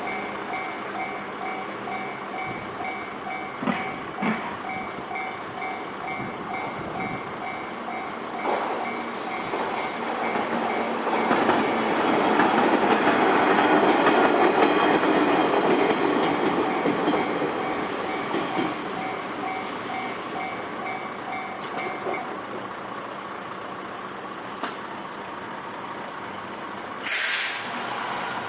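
Level-crossing alarm ringing in a steady repeating two-tone pattern while a JR Wakayama Line train passes over the crossing. The train's rumble swells to its loudest in the middle and fades away, and the alarm stops a few seconds later. A brief loud noise follows near the end.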